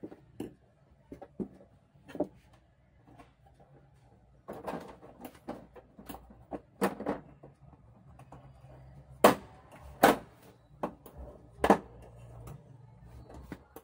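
Irregular clicks and knocks from a flat-screen LED TV's plastic frame being handled, with three louder sharp knocks in the second half.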